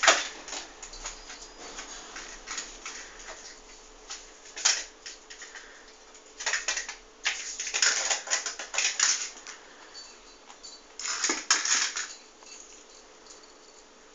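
A cat batting a small toy mouse around on a tile floor: irregular clusters of skittering taps and scratches from claws and the toy on the tiles, coming in several bursts.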